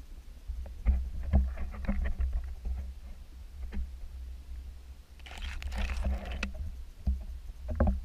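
Underwater handling noise heard through a GoPro's waterproof housing: a muffled low rumble of moving water with scattered knocks and clicks as the housing bumps and shifts, and a burst of hissing water noise a little past the middle.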